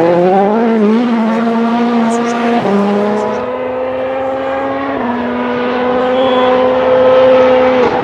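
Citroen C3 WRC rally car's 1.6-litre turbocharged four-cylinder engine running at high revs flat out: the pitch climbs over the first second, then holds high and level with two sudden small drops, about two and a half and five seconds in.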